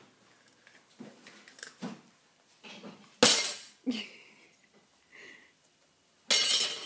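A metal-shafted screwdriver banged down onto hard objects in a few irregular knocks and clinks, the loudest about three seconds in, then a quick run of clattering strikes near the end.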